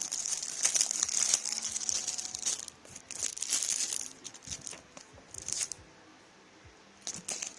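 Packaging crinkling and rustling as it is handled and unwrapped, steady for the first two and a half seconds, then in short bursts with a brief lull near the end.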